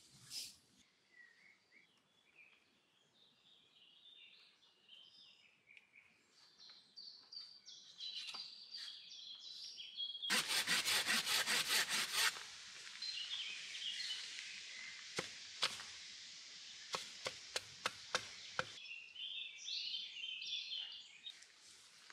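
Small birds chirping, with wood being worked by hand: about halfway, a run of fast, even strokes, about seven a second for two seconds, then a string of sharp clicks and snaps.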